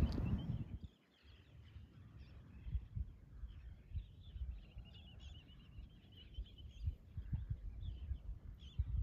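Seabird colony calling: many short high calls, with a rapid chattering trill about four seconds in. Underneath are irregular low gusts of wind buffeting the microphone, and a louder rumble in the first second drops away.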